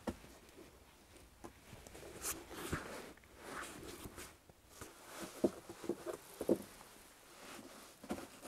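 Footsteps and scattered light knocks on a wooden log floor, with rustling as boots and insoles are handled.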